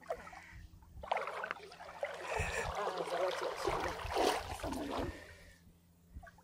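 Water splashing and sloshing as someone wades through shallow river water. It starts about a second in and dies down near the end.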